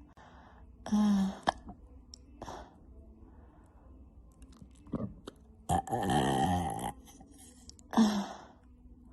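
A woman burping several times: a short burp about a second in, a long, loud burp about six seconds in, and another short one near the end, with a few quieter short sounds in between.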